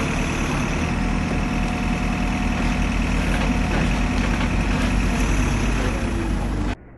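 Backhoe loader's diesel engine running steadily as the machine lifts a bucketful of mud dredged from a drainage canal; the sound cuts off abruptly near the end.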